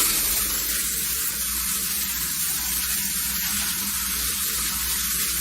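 A steady hiss, like running water or sizzling, that starts abruptly and holds even throughout.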